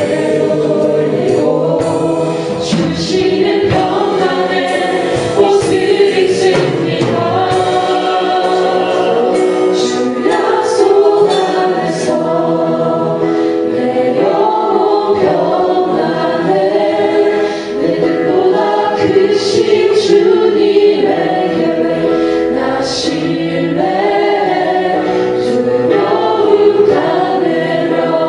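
Many voices singing a Christian worship song together, a congregation and praise team in chorus with musical accompaniment.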